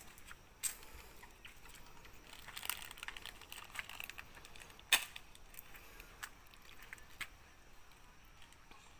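Plastic food packet crinkling and crackling in a long-tailed macaque's hands as it handles the wrapper, in faint irregular clicks with two sharper snaps, one under a second in and one about halfway through.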